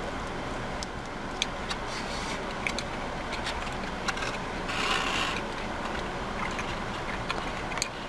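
Small clicks from chewing and handling food, scattered over a steady background rumble, with a short rustle about five seconds in.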